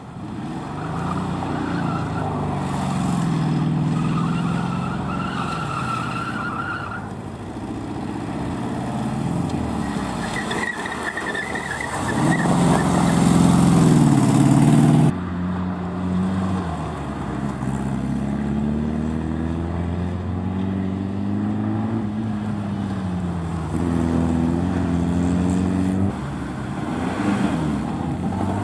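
Volkswagen Karmann Ghia's air-cooled flat-four engine revving up and down as the car is driven hard around a cone course, with short tyre squeals on the turns. After an abrupt cut about halfway, a classic car's engine goes on revving and easing off.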